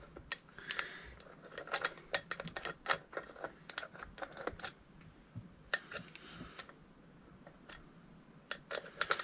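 Small metal clicks and clinks of a hex key and screw against the metal side cover of an electric scooter hub motor as a cover screw is lined up and started by hand. A quick run of clicks fills the first half, there is a quieter pause, and a few more clicks come near the end.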